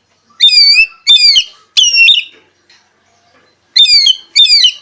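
Oriental magpie-robin (kacer) calling with loud, wavering whistled notes: three in quick succession, then two more after a pause of about two seconds.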